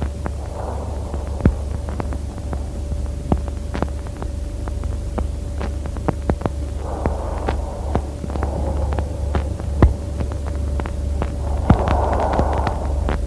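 Stethoscope recording of Biot's breathing. Breath sounds come in short groups separated by pauses of several seconds: one group about half a second in, two breaths around seven to nine seconds, and another near the end. A constant low hum and scattered clicks from the chest piece run underneath.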